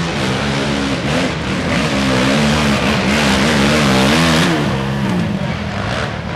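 Racing quad (ATV) engine revving up and down over and over, the pitch swinging rapidly, as it claws up a steep loose-dirt hill with its rear tyres spinning and throwing dirt.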